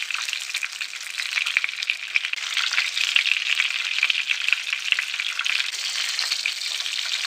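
Breadcrumb- and sesame-coated fish pieces shallow-frying in hot oil in a pan: a steady, dense sizzle full of fine crackles.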